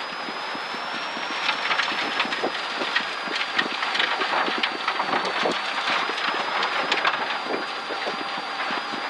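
Inside a rally car driving a wet gravel stage: a steady rush of tyre noise and spray, with many small knocks of gravel and water striking the body, over the engine.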